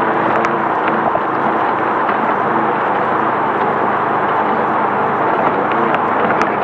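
Air-cooled VW 1600 flat-four of a Class 5/1600 desert race bug running at speed, under a steady rush of tyre and wind noise, with a few sharp knocks from the car over rough ground.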